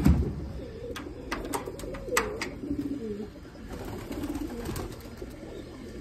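Domestic pigeons cooing in a loft, a low wavering murmur of several birds. A loud knock right at the start, then several sharp clicks over the following seconds.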